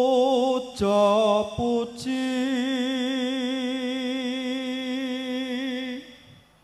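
A man chanting a Javanese puji sesanti prayer in a slow, drawn-out melody. A few short wavering phrases lead into one long note held with vibrato for about four seconds, which stops about six seconds in.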